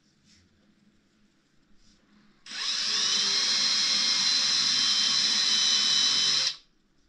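Cordless drill with a pointed router bit spinning up and running steadily with a high whine for about four seconds, then stopping, as it mills an open air bubble out of soft, partly cured epoxy resin in fine shavings.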